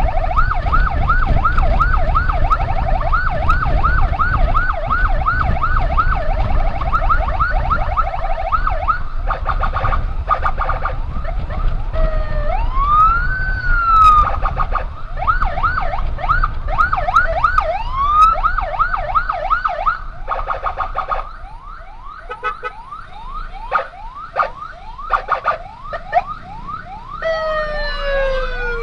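Electronic emergency siren on an ambulance escort run, mostly a fast yelp of several sweeps a second, broken once by a slow wail that rises and falls. About two-thirds through it gets quieter and more broken up. A low rumble of engine and wind runs under the first part.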